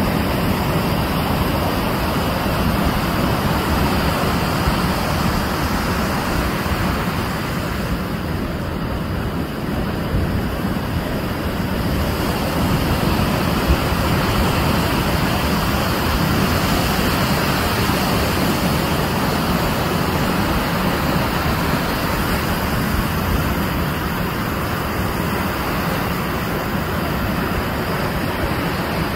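Ocean surf breaking and washing up the beach: a steady rushing noise with no distinct separate events.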